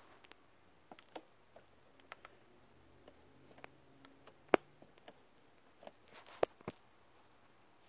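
Faint, scattered clicks and taps on a quiet background, with one sharper click about halfway through and a few more close together near the end.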